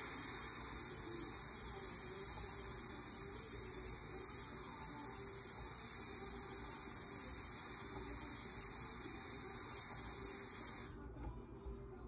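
Airbrush spraying paint, a steady high hiss of air through the nozzle that cuts off suddenly near the end, with a faint low hum beneath.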